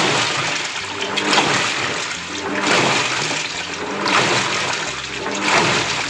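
Water churning and rushing in the tub of a Panasonic 6.2 kg top-load washing machine as it agitates during its Tub Hygiene cleaning cycle. The rush swells about every second and a half as the wash action reverses.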